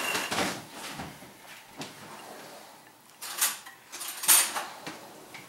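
A kitchen drawer being slid open and shut while a fork is fetched: several short sliding, scraping sounds, the loudest two a little after three and about four seconds in.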